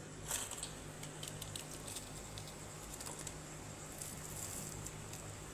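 Faint crackles and light clicks as crisp fried urad dal vadas are picked up and handled by hand, over a low steady hum.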